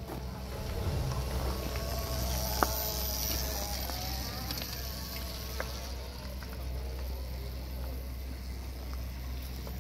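Small electric motorcycle's motor whining, its pitch rising and falling as the rider speeds up and slows down, with a single sharp knock about two and a half seconds in.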